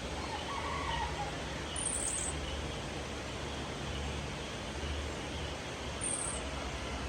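Steady outdoor ambient noise with a low rumble, broken twice by short, high-pitched chirps, about two seconds in and again near the end.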